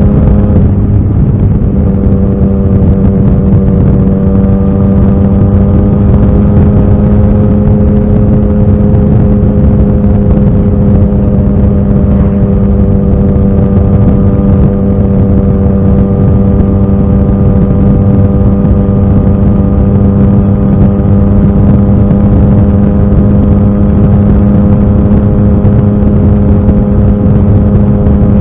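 Yamaha XSR900's inline three-cylinder engine running at a nearly steady speed while riding, its pitch holding almost constant, with a brief slight dip about a second in.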